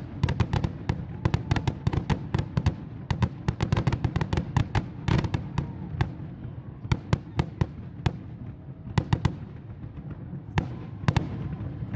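Fireworks crackling: rapid, dense pops and cracks over a low rumble, thinning out about halfway through to a few scattered loud cracks.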